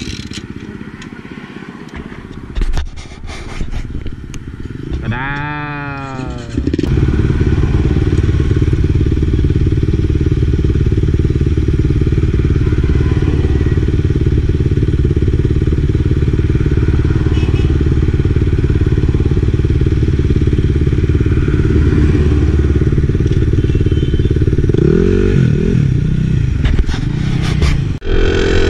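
Enduro motorcycle engine revving up about six seconds in, then running loud and steady under way, with another rise and fall in revs near the end.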